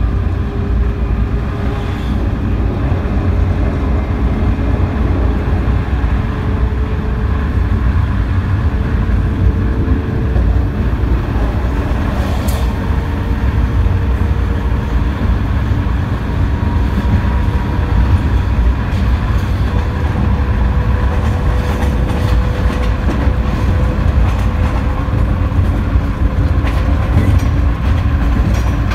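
Cab of a BB 7200 electric locomotive under way: a steady low rumble of the running gear on the track, with a faint whine that slowly climbs in pitch as the train gathers speed. Now and then there is a brief click.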